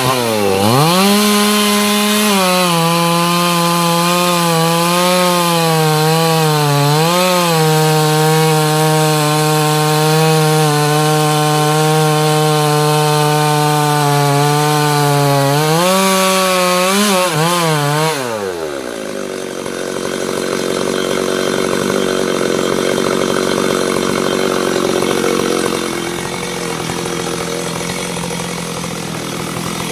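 Chainsaw running at high revs as it cuts into a teak trunk, its note dipping briefly under load a few times. About 18 seconds in, the engine note falls away steeply and a lower, rougher sound carries on.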